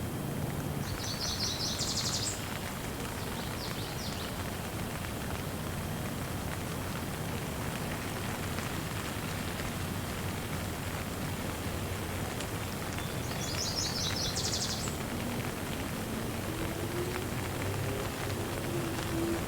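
Steady rain falling, with a bird chirping twice in short runs of rapid high notes: about a second in and again about two-thirds of the way through.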